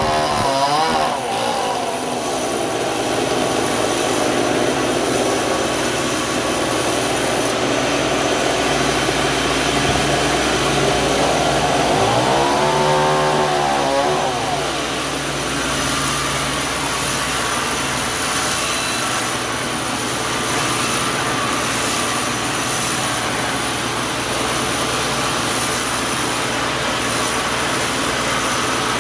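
Engine-driven sawmill machinery running steadily under load, its pitch bending up and down near the start and again about halfway through.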